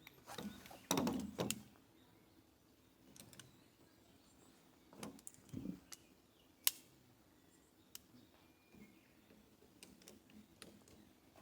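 Scattered knocks and clicks of things being handled: a cluster in the first second and a half, a few more about five seconds in, and one sharp click near seven seconds.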